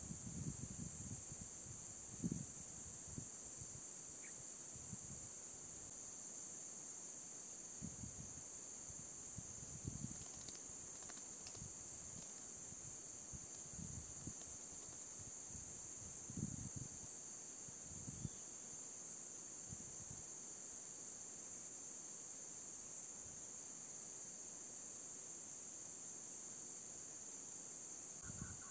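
Steady high-pitched drone of insects, with scattered low bumps and rumbles.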